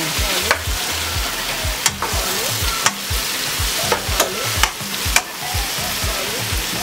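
Onions, bell peppers and chopped vegetables sizzling in hot oil in a pot while being stirred, with the utensil knocking sharply against the pot about six times.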